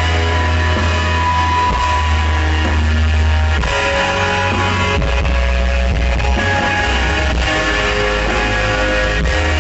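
Post-rock band playing live and loud through a festival PA: held electric guitar notes over a heavy, constant bass, with the notes changing every second or so.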